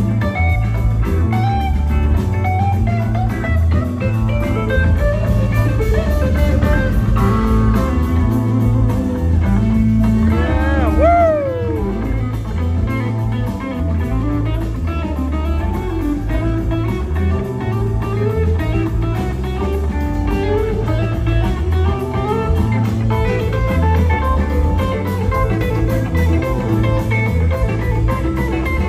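Live rock band playing an instrumental passage: electric guitars taking lead lines over bass guitar and drum kit, with one lead note swooping up and back down about ten seconds in.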